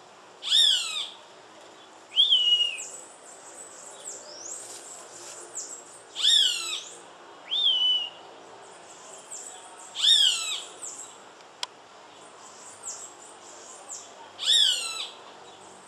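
Hawk calling: about six loud, harsh screams that fall in pitch, a few seconds apart, four long and two shorter. Faint, quick high chirps of other birds sound between them.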